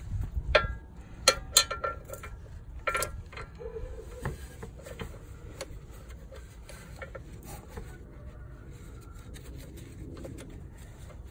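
Small metal parts of a stabilizer link clinking as they are handled and fitted through the lower control arm: the bolt and its metal collars. There are several sharp, ringing clinks in the first three seconds, another about four seconds in, then quieter fiddling and light taps.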